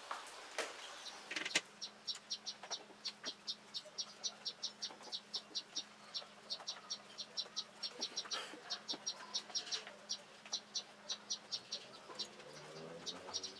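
Steady train of short, high chirps, about four or five a second, typical of a chirping insect such as a cricket, over a faint low hum. A couple of sharp clicks sound in the first two seconds, the louder one about a second and a half in.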